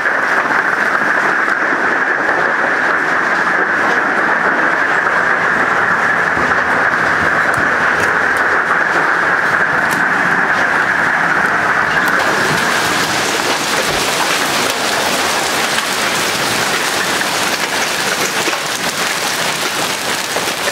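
Hail and heavy rain pelting down in a dense, steady clatter. About twelve seconds in the sound turns brighter and hissier.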